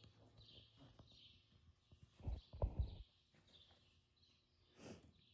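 Horse moving on deep arena sand, with a few soft, low thuds about two to three seconds in and a short breathy rush near the end. Faint bird chirps are heard throughout.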